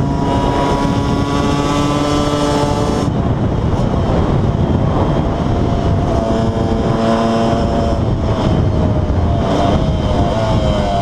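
KTM 125 EXC two-stroke single-cylinder engine on a supermoto ride. It holds a steady note, then about three seconds in the throttle closes and the sound turns rough and noisy. The note returns about halfway through, sags slowly, and rises again near the end as the rider opens the throttle.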